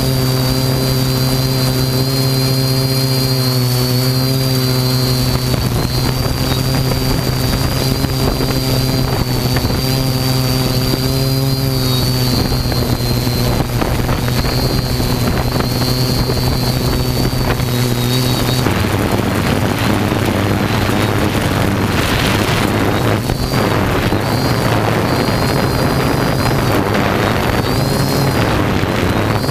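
Galaxy 7000 quadcopter's motors and propellers humming steadily, with a thin high whine above; the pitch wavers twice as the motors adjust. About two-thirds through, the hum drops lower and gusty wind noise on the microphone rises.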